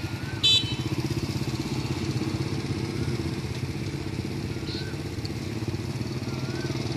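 Small motorcycle engines running steadily. About half a second in there is a short, loud, high-pitched beep.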